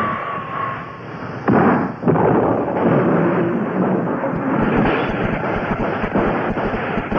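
Explosion sound effects: a sudden blast about one and a half seconds in, then a continuous rumble of further blasts.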